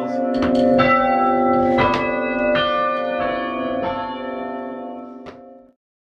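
A ring of five church bells, hung for full-circle change ringing, struck one after another at uneven intervals, each stroke ringing on under the next and slowly dying away. The sound cuts off suddenly near the end.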